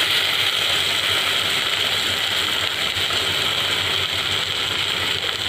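Vegetable spring roll filling, with soy sauce just added, sizzling steadily as it fries in a hot pan, with the rough scraping of a spatula stirring it.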